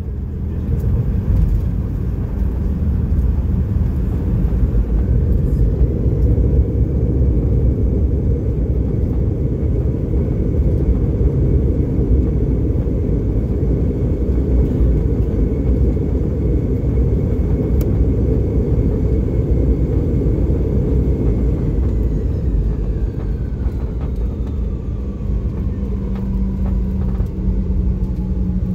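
Cabin noise of a Boeing 717 on its landing rollout: a steady low rumble, with the whine of its rear-mounted Rolls-Royce BR715 turbofans holding steady, then falling in pitch over several seconds about two-thirds of the way through as the engines spool down.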